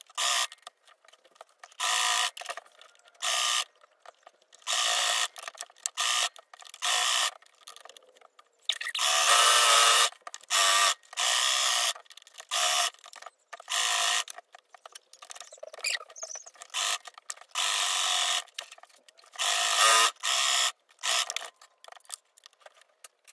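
Singer electric sewing machine top stitching layers of jersey fabric, running in many short runs of about a second and stopping briefly between them as the fabric is turned and guided.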